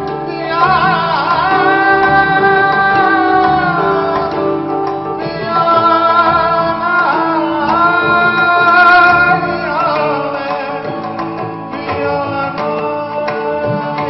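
Male vocalist singing long, held notes in an Indian classical style, with wavering, gliding ornaments. A steady sustained accompaniment runs beneath the voice.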